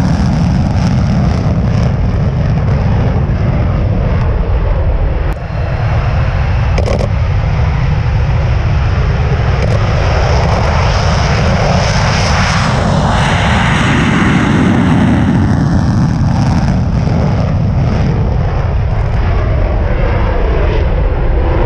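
F-16 fighter's Pratt & Whitney F100 turbofan at full afterburner on takeoff: a loud, continuous jet roar that holds steady as the jet accelerates and climbs away.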